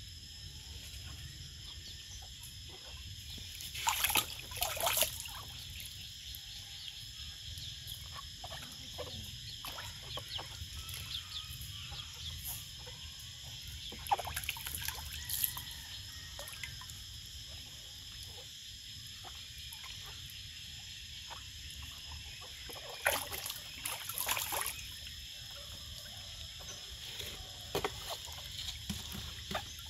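Water splashing and sloshing in a plastic tub as a young monkey swims and paddles in it. The sound comes in a few louder bursts of a second or two, with small drips and laps in between.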